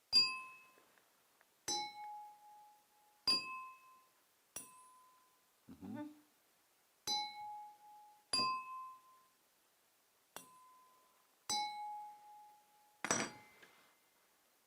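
Drinking glasses struck one at a time, each giving a short ringing ding at one of two close pitches, about ten strikes a second or so apart. About six seconds in one strike is a dull knock, and near the end one is a louder clattering clink.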